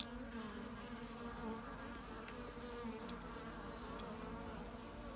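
Honey bees buzzing: a steady, slightly wavering hum of many bees, with a single sharp click at the very start.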